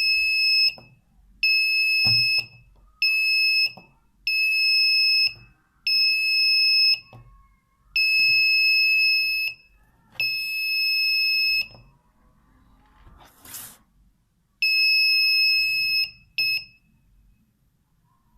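12 V buzzer of a home-made laser alarm sounding a steady high-pitched tone in repeated bursts, each about one to one and a half seconds long, stopping and starting again about nine times, with faint clicks in the gaps. It goes off each time the laser beam is interrupted.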